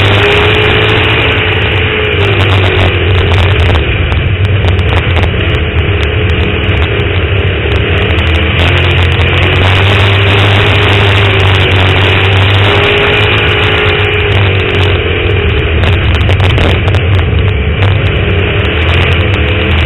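On-board sound of a dirt-track race car's engine running hard through the laps, loud throughout, its pitch rising and falling every few seconds as the car goes down the straights and backs off for the turns.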